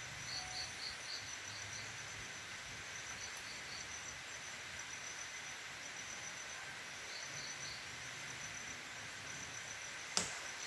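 Forest insects chirping in a steady, evenly pulsing chorus, joined now and then by short runs of quicker chirps. A single sharp crack near the end is the loudest sound.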